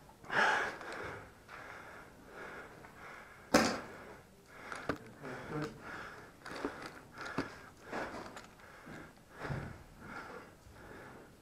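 Footsteps and gear rustle on a debris-strewn concrete floor, short soft sounds about every half second to a second, with one sharp crack about three and a half seconds in.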